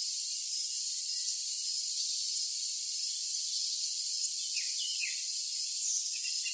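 Steady, high-pitched chorus of crickets chirring without a break. A songbird gives two short calls about four and a half seconds in.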